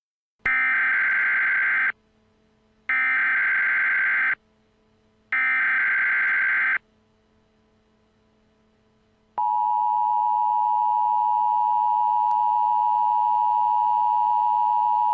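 Emergency Alert System tones: three short bursts of SAME header data, each about a second and a half long with a second between them. Then, about nine seconds in, the steady attention tone begins and keeps sounding. This is the start of a new alert.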